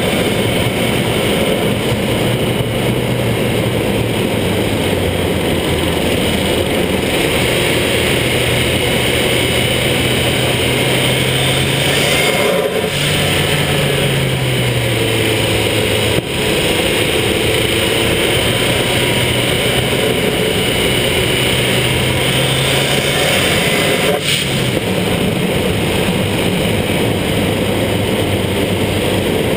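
Fiat Punto GT's turbocharged engine pulling the car along, its pitch shifting with road speed and dipping briefly three times, under heavy wind and wet-road tyre noise at the low-mounted camera.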